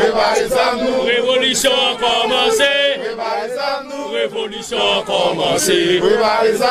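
A group of men's voices chanting a song together.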